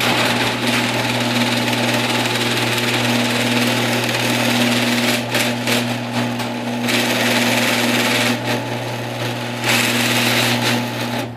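Genie Pro screw-drive garage door opener raising the door: a steady motor hum over the loud whir of the screw drive, which stops suddenly near the end.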